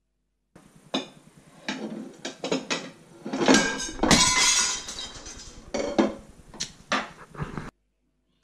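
Plates and cutlery clattering and clinking as dishes are handled at a dish rack: a run of sharp knocks and clinks, loudest about four seconds in, cutting off suddenly near the end.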